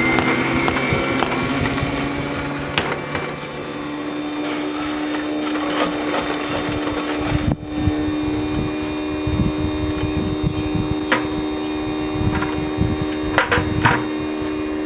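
1-horsepower continuous-feed garbage disposal running steadily while grinding charcoal pellets, its motor hum overlaid by the crackling and sharp knocks of charcoal chunks being broken up in the grinding chamber.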